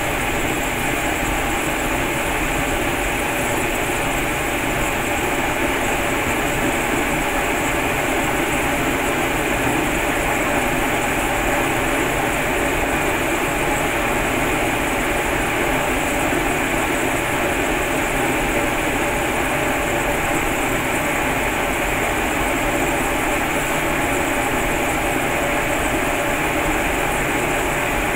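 Cremation furnace running with the fire burning in its chamber: a steady, even rushing noise that does not change.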